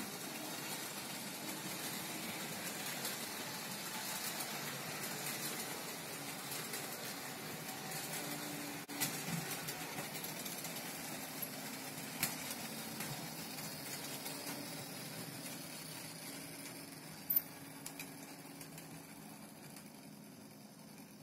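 Märklin model train running on its track: the locomotive's electric motor hums steadily and the wheels rattle over the rails, with a few sharp clicks. The sound fades over the last few seconds as the train slows to a stop.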